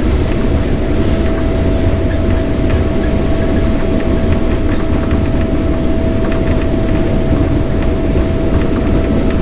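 Jet airliner engines at takeoff, heard inside the passenger cabin: a steady deep rumble with a steady whine held on one pitch.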